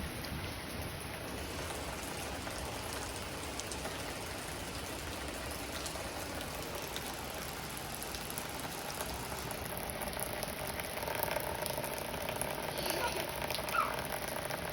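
Steady rain falling, an even hiss with no breaks; faint voices come in near the end.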